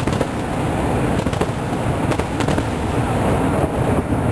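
Aerial firework shells bursting: a continuous din of bangs and crackle, with a few sharper cracks standing out.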